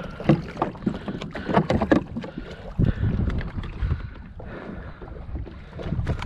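Irregular knocks, clicks and rattles of fishing gear (a fish gripper, landing net and rod) being handled against a plastic kayak hull, over a low rumble of wind on the microphone.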